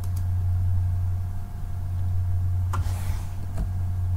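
Steady low background hum with a few faint short clicks.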